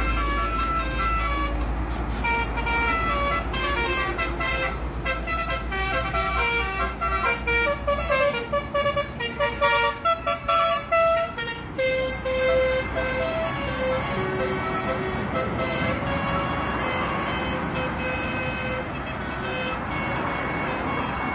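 Bus telolet horn, a Basuri V3 multi-tone set, playing a fast tune of short melodic honks for about twelve seconds, then only a few more notes. The bus's engine and a growing rush of road noise run underneath.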